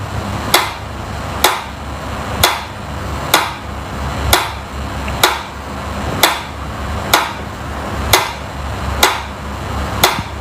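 Mechanical pyramid metronome ticking with its pendulum swinging, one sharp tick about every second, evenly paced.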